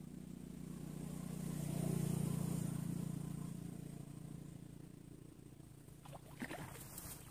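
An engine passing by: a low, steady motor hum swells to its loudest about two seconds in, then fades away. A few light clicks near the end.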